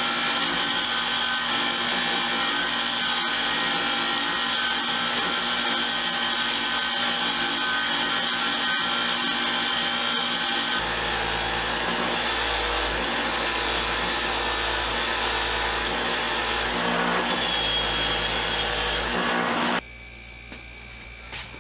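Power-driven wire wheel running steadily while sockets are held against it to scrub off rust and grime. The sound changes character about halfway through, taking on a low rumble, and drops away sharply near the end.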